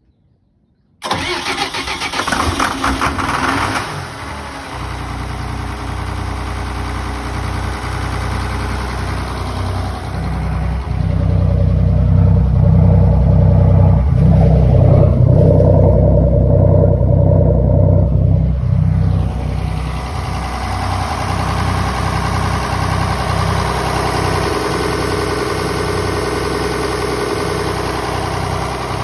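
Turbocharged inboard marine diesel engine cranking on its starter and catching after about three seconds, then idling steadily. Its rumble grows louder for several seconds in the middle, then settles back.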